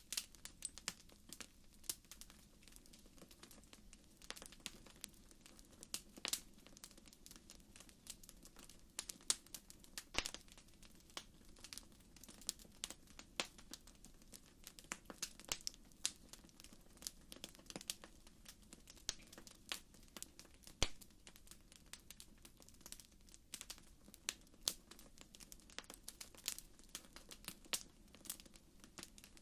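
Campfire crackling: wood burning with irregular sharp pops and snaps, some louder than others, over a faint steady low hum.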